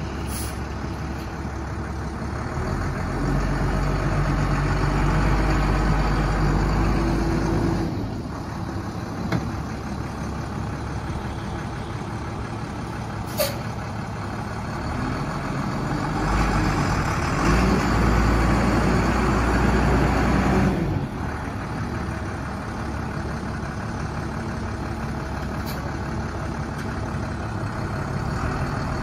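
International DT466 inline-six diesel of a 2005 International 4300 box truck running as the truck drives. It gets louder from about three to eight seconds in and again from about sixteen to twenty-one seconds, each time dropping off suddenly. There is a brief sharp click about halfway through.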